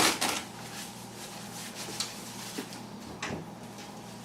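Clicks and knocks of the greasy parts of a disassembled power window motor gearbox being handled, loudest right at the start, with two smaller knocks later, over a steady low hum.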